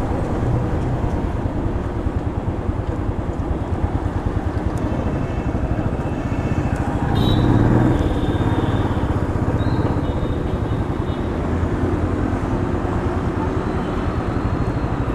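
Royal Enfield Classic 350's single-cylinder engine running steadily while the bike is ridden in traffic, with road and wind noise, and a short rise in the note about halfway through.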